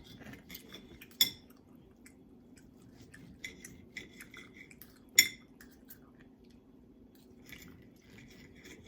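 Knife and fork clinking and scraping against a plate while steak is cut, with two sharp clinks, one about a second in and one about five seconds in.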